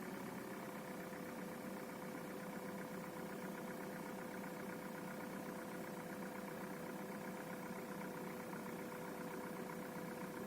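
Hyundai Solaris 1.6 four-cylinder petrol engine idling steadily just after a cold start, with a knock from the engine that the owner calls obvious.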